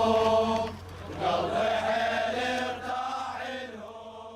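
A group of men chanting the refrain of a Shia latmiyya together in a lament rhythm. They break off about a second in, start again, then fade out near the end.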